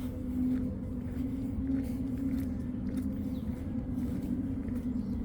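A steady, weird low hum of unknown source, with a couple of wavering tones held throughout over a low rumble.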